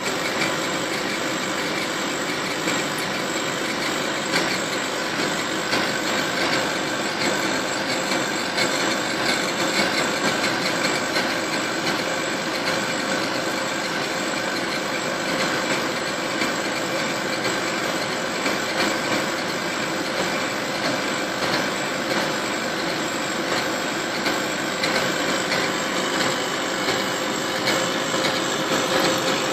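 Laser engraving machine running while it engraves a glass on its rotary attachment: a steady mechanical whir and hum that keeps an even level throughout.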